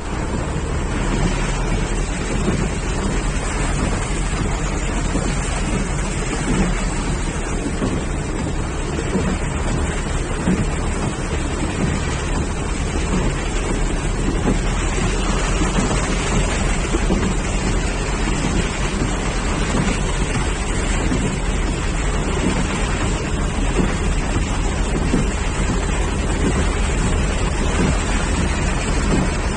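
Heavy rain pouring steadily, with wind rumbling on the microphone.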